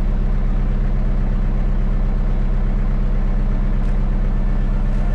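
Tractor engine idling steadily, heard from inside the cab.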